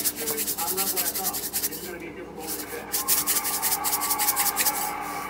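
Seasoning shaker shaken over a bowl of chopped egg, a fast run of rattling, sprinkling strokes with a short pause about two seconds in.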